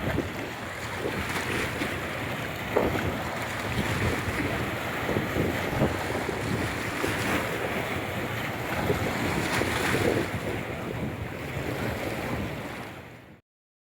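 Wind buffeting the microphone over the wash of water, fading out near the end.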